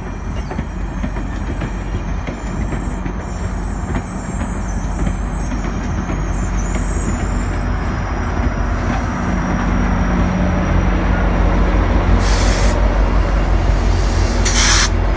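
GO Transit bilevel passenger train rolling past slowly, wheels running on the rails with a faint high squeal, while the MP40PH-3C diesel locomotive pushing at the rear draws near and its engine's low drone grows louder. Two short hisses of air come near the end.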